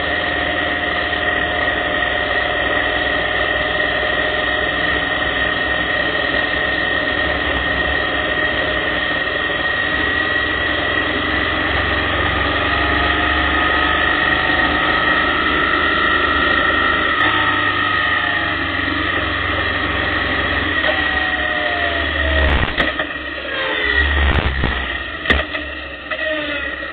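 Motorcycle engine running steadily while riding, its pitch slowly rising and falling with the throttle through the curves. Over the last few seconds the sound turns uneven, with knocks and dips in level as the bike slows.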